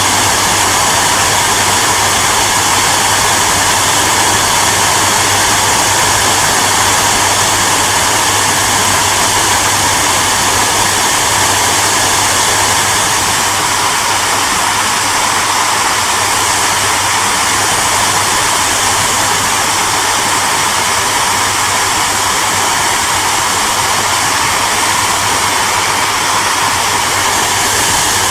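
Hair dryer running steadily: a continuous rush of blowing air over a low motor hum, easing slightly in loudness about halfway through.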